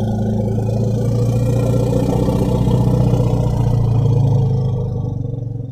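Triceratops creature sound effect: a long, low, rough growl held at a steady deep pitch, fading out near the end.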